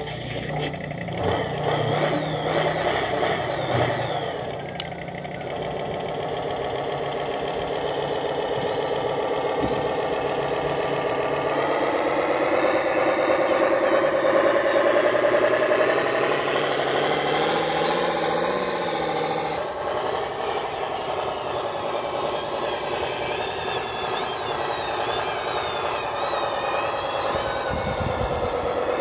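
Truck engine sound for a radio-controlled miniature Canter truck pulling away: a start-up in the first few seconds, then a steady engine note that climbs slowly in pitch and loudness and levels off about halfway through.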